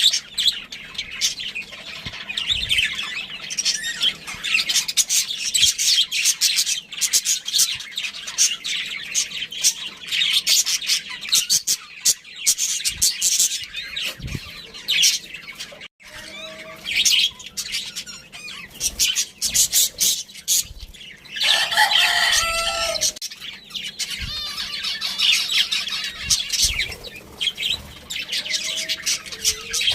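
A group of budgerigars chattering and chirping continuously in a dense, high warble. About twenty-two seconds in, a louder, lower call with several overtones stands out for a second or two.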